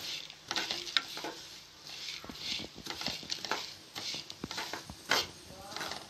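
A metal spoon stirring and scraping crushed dry Maggi instant noodles around a steel kadai in quick, irregular strokes, as the noodles roast in a little oil toward golden brown.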